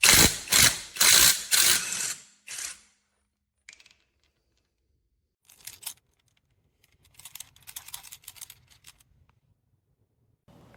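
A quick run of sharp mechanical clicks and clatters, loudest in the first two seconds, then lighter bursts of clicking about six and eight seconds in.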